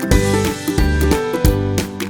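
Upbeat background music with a steady beat and a bass line that comes in at the start, over plucked or strummed notes.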